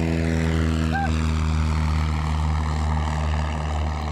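Cessna 172's piston engine and propeller droning steadily as the plane climbs away after takeoff, its pitch falling slightly over the first couple of seconds and the sound easing a little near the end.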